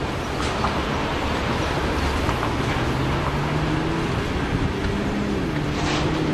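Freight train of tank wagons rolling past, a steady rumble of wheels on the rails with faint humming tones that shift in pitch.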